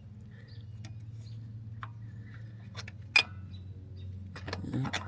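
Scattered small metallic clicks and clinks of tools and pulley hardware being handled during an idler pulley swap, with one sharp click about three seconds in, over a steady low hum.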